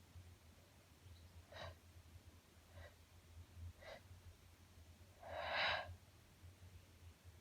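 A woman breathing: three short, faint breaths, then a louder, longer breathy exhale like a sigh about five seconds in.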